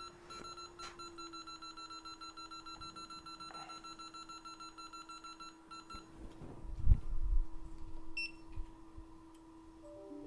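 Rapid electronic beeping from bench equipment, a high tone pulsing about seven times a second for roughly six seconds, over a steady low hum. After the beeping stops come a few low knocks of handling on the bench.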